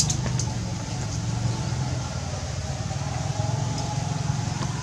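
A steady low motor hum, with a short sharp click at the very start.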